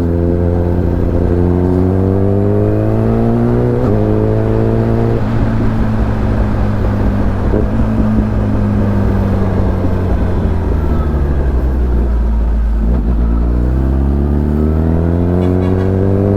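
Kawasaki Ninja ZX-10R's inline-four engine under way. Its pitch climbs under acceleration with a gear change about four seconds in, settles and eases off through the middle, then rises again near the end.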